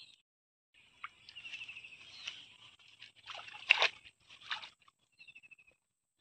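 Handling noise: rustling and several sharp knocks as a person walks through grass carrying a caught catfish, the loudest knock nearly four seconds in. A small bird chirps in short, rapid trills at intervals behind it.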